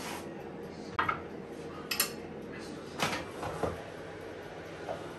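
Kitchen clatter of a serving plate and utensils on a countertop: a few separate knocks and clinks about a second apart.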